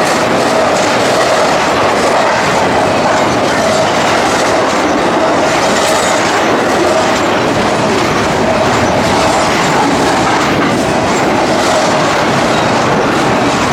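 Freight train cars rolling past at close range: a loud, steady rumble and clatter of wheels on the rails, with a steady squealing tone from the wheels running through it.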